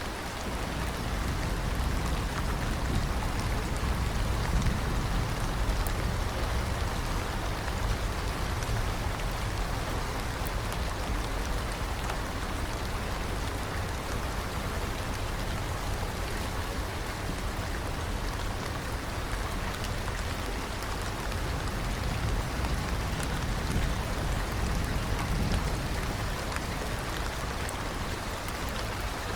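Steady rain falling, with the patter of individual drops on surfaces over a low, rumbling wash.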